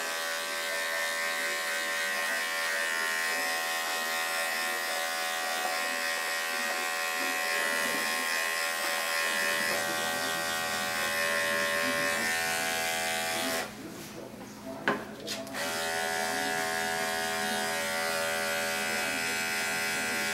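Electric dog-grooming clippers with a #40 blade running with a steady buzzing hum. The hum stops for about two seconds, roughly 13.5 seconds in, with a couple of small clicks, then starts up again.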